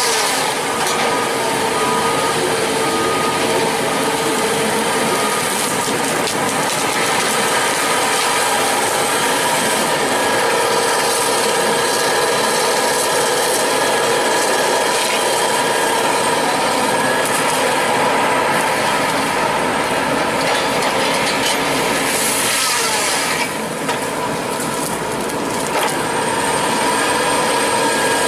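Heavy tree-cutting excavator machine running, its engine steady with a held whine. The level dips briefly about 23 seconds in.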